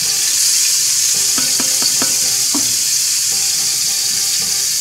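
Chopped onion, parsley, celery, garlic and chili frying in hot sunflower oil in a pan: a loud, steady sizzle, with a few light clicks in the first half.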